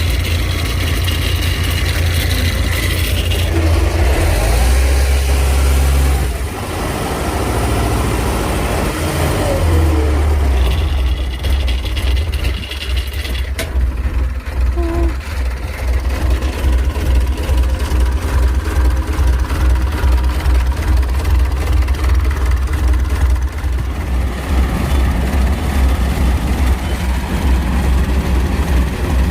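Diesel engine of rice-harvesting farm machinery running close by, a continuous deep rumble that dips briefly and shifts in pitch now and then.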